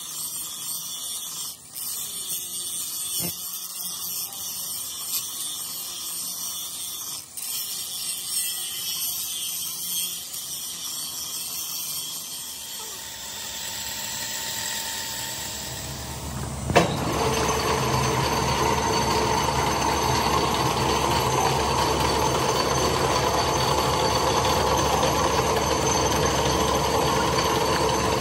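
Handheld angle grinder grinding the finned housing of an electric water pump motor: a steady high-pitched whine with a few knocks. After about 13 s it fades, and from a sharp click near 17 s a louder, steady machine noise with a low rumble takes over.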